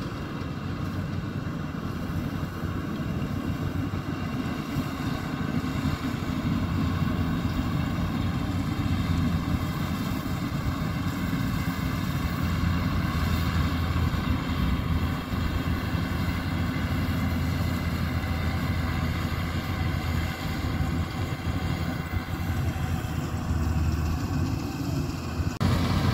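Yanmar YH850 combine harvester's diesel engine running steadily under load while it harvests rice: a steady low drone with fainter steady higher tones above it.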